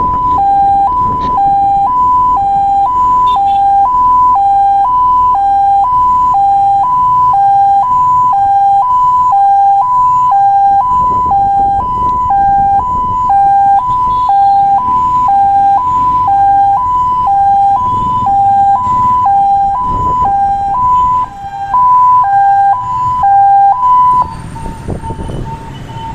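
Fire truck's two-tone hi-lo siren, alternating between a higher and a lower pitch about once a second over engine and road noise; it stops near the end.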